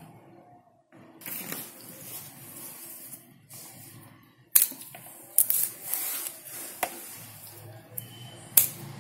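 A tender palmyra sprout being split and peeled into strips by hand. Fibrous tearing and rustling, with several sharp clicks from the second half on, the loudest about halfway through and another near the end.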